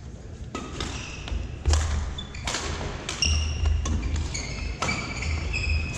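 Badminton rally: sharp racket strikes on the shuttlecock about once a second, the loudest near two seconds in. Sneakers squeak and thud on the wooden court floor, the squeaks coming thick and fast in the second half.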